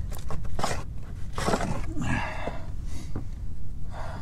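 A paintbrush swishing and scraping as it spreads Turbo Poly Seal polyurethane-bitumen sealant along a metal roof seam and dips into the can, in several short rough strokes with a few light clicks.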